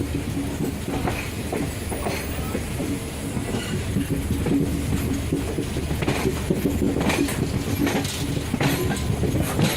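Indian Railways express passenger train rolling slowly into a station, with a steady low rumble and wheels clicking over rail joints. Several sharper clacks come in the second half.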